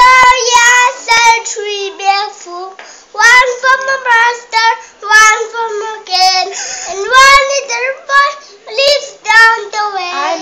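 A young boy singing a song solo and unaccompanied in a high child's voice, phrase after phrase with short breaths between.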